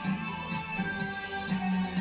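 Recorded music playing from a stereo: sustained tones over a steady beat, with high ticks about four times a second.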